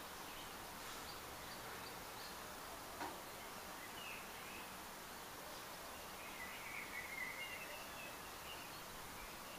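Faint bird chirps and a short warbling call over steady room hiss, with one soft click about three seconds in.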